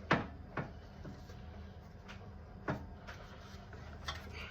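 A few separate knocks and clunks as the new suspension arm is worked into place on the car, the sharpest right at the start, then others spaced about a second or two apart.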